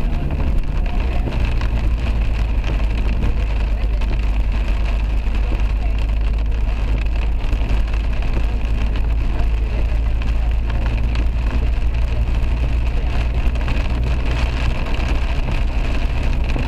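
Car driving on a rain-wet road, heard from inside the cabin: a steady low rumble of engine and road noise under an even hiss of tyres on the wet surface.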